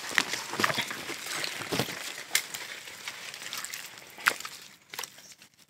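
Dry leaves, twigs and undergrowth rustling and crunching as someone moves through brush on foot, with many small snaps and clicks. A sharper snap comes about four seconds in, and it quietens near the end.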